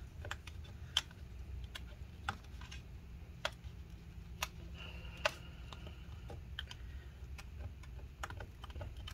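Irregular small clicks and ticks, about one or two a second, of old battery adhesive being scraped and picked off the aluminum case of a MacBook Pro, over a faint low hum.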